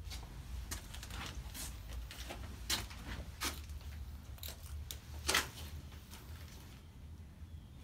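Footsteps crunching over a floor strewn with debris and litter, about one step a second, with the loudest crunch a little past halfway. A low steady rumble runs underneath.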